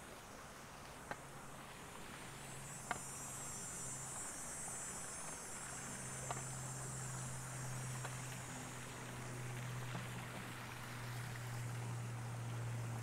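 Cicadas buzzing high, swelling and then fading, over a steady low hum that grows louder in the second half. A handful of sharp single ticks sound now and then.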